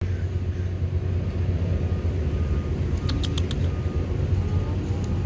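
Steady low rumble of outdoor background noise, with a quick run of a few sharp clicks about three seconds in.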